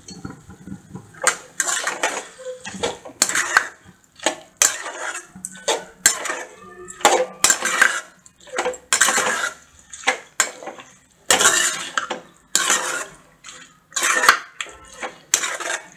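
Perforated steel spoon scraping and stirring chicken pieces around a metal kadai: repeated metal-on-metal scrapes, irregular, roughly one or two a second, starting about a second in. The chicken is being stir-fried dry in oil, without water.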